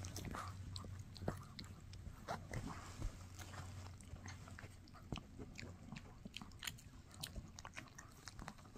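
Shih Tzu gnawing on a bully stick: faint, irregular crunches and clicks of teeth working the chew.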